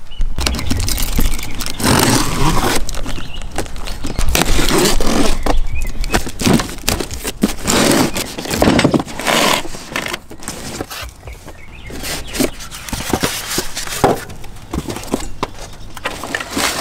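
Cardboard box of a new floor jack being opened and unpacked: bursts of cardboard scraping and rustling, with sharp clicks and knocks as the foam packing and handle tubes are pulled out.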